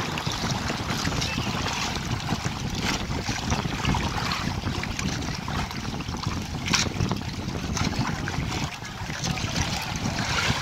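Sea water sloshing and splashing around snorkellers holding onto a boat's bamboo outrigger, with wind buffeting the microphone. A sharper splash comes about seven seconds in.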